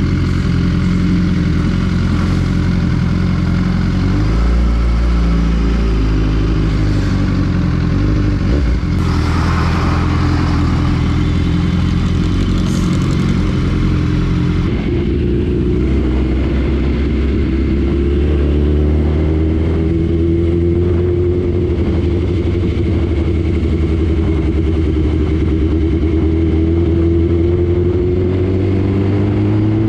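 Superbike engine running as the motorcycle rides off and cruises, its pitch rising and falling gently with the throttle. A brief rush of noise comes about nine seconds in.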